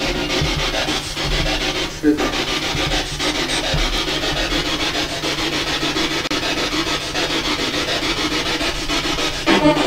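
Spirit box, a radio sweeping rapidly through stations, giving out continuous choppy, rasping static.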